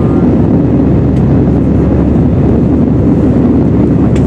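Steady, loud roar of an Airbus A320's jet engines and rushing airflow, heard from inside the cabin over the wing as the airliner climbs after takeoff.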